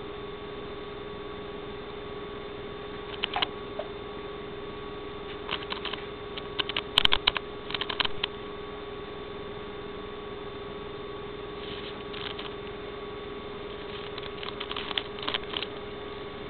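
Scattered runs of light clicking and scraping, a water turtle's claws against the glass heater tube and the gravel in its tank, loudest around the middle and again near the end, over a steady hum.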